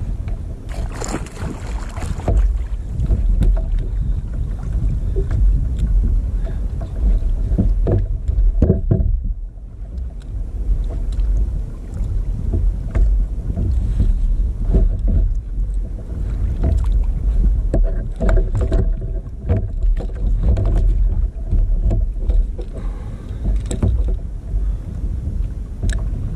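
Sea water slapping and sloshing against a plastic sit-on-top kayak's hull, with wind buffeting the kayak-mounted microphone into a heavy low rumble. Scattered knocks and clicks from fishing rod and gear being handled on the deck.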